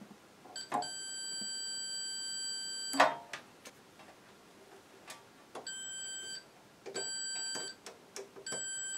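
Multimeter continuity beeper sounding as the probes bridge the welder's transformer windings: one steady high beep of about two seconds, then three shorter beeps, showing the windings are intact. A sharp click as the first beep ends, and lighter clicks of probes on metal between the beeps.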